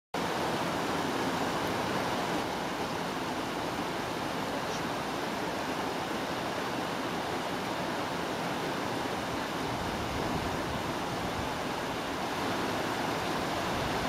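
Waterfall and fast river water rushing in a steady, even roar.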